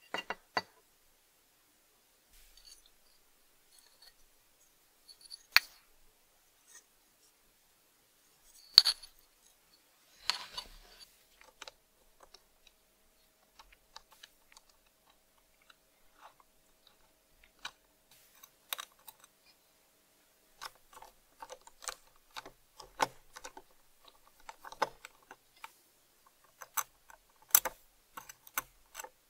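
Scattered small metal clicks, taps and scrapes as a small screwdriver and tweezers work screws out of the rusty metal case of an antique battery-tester meter. The clicks come closer together in the last third.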